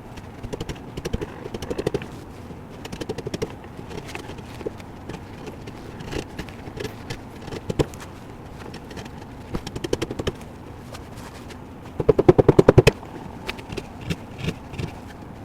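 Small hand tools being handled on a workbench: scattered clicks and light knocks, with a quick rattling run of clicks about twelve seconds in.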